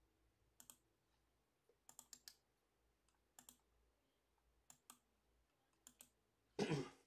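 Faint clicks of a computer mouse and keyboard, in about six small groups roughly a second apart, then a brief louder voice sound near the end.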